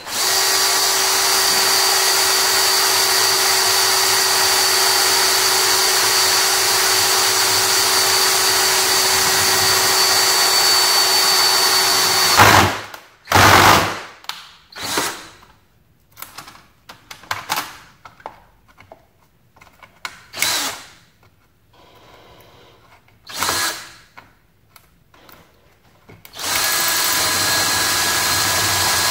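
DeWalt cordless drill with a half-inch twist bit boring through the plastic wall of a watertight box. The motor runs steadily for about twelve seconds, then in a string of short bursts with pauses between them, then runs steadily again near the end.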